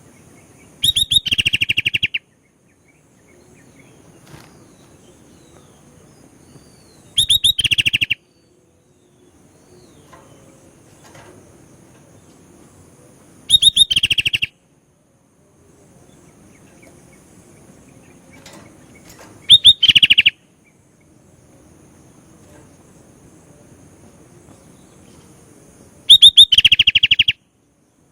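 Sooty-headed bulbul (kutilang) giving five loud, rapid chattering trills, each about a second long and opening with a brief higher note, repeated about every six seconds.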